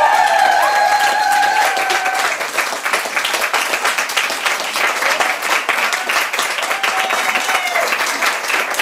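The last of the dance music dies away about two seconds in as a small audience applauds, clapping steadily.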